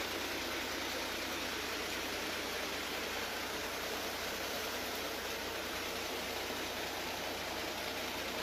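Floodwater rushing steadily through a flooded residential street, an even hiss of moving water.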